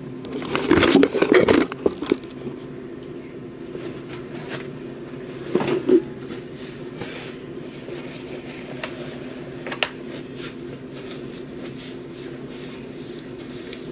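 Kitchen handling noises: dishes and utensils knocking and rattling, loudest about a second in and again around six seconds, with a single click near ten seconds, over a steady low hum.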